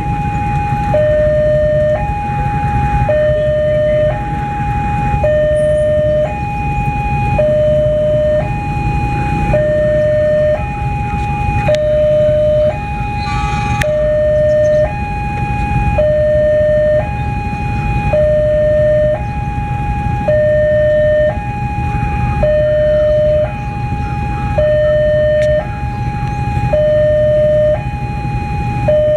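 Railway level-crossing warning alarm sounding an electronic two-tone signal that alternates between a high and a low note about once a second, warning that the crossing is closed for a train. A steady low rumble runs underneath.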